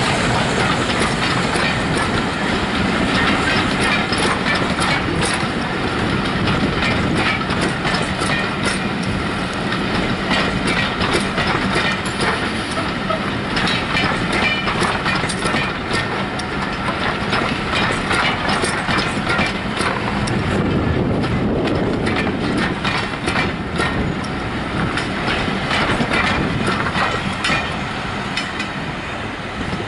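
A train of passenger coaches rolling past, its wheels clattering over the rail joints. The noise eases near the end as the last coach goes by.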